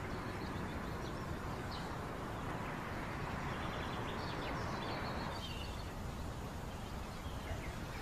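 Quiet outdoor ambience: a steady background hiss with a few faint bird chirps.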